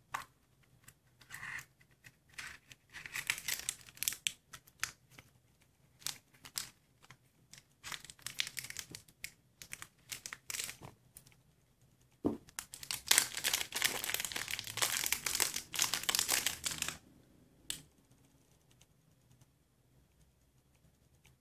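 A plastic Easter egg clicks as it is twisted open, then a small clear plastic bag crinkles in the hands and is torn open, with the longest and loudest crinkling a little past the middle.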